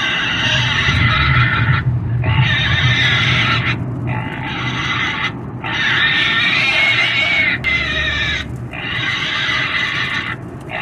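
Pig screaming: about five long, harsh squeals, each one to two seconds, separated by short breaks for breath.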